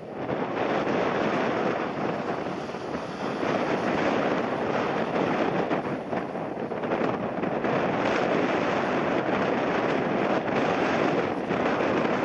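Jet airliner engine noise, a loud steady rush that comes in suddenly at the start, landing in a strong crosswind, with gusty wind buffeting the microphone.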